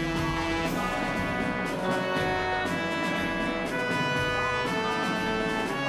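Instrumental background music of held notes that change every half second or so, with no speech.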